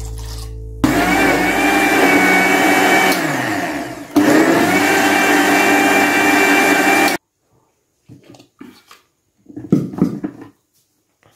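Panasonic 1000 W mixer grinder running, blending flour, eggs and coconut milk into a smooth batter. It starts about a second in, stops and starts again about four seconds in, and cuts off suddenly about seven seconds in, followed by a few light knocks as the jar and lid are handled.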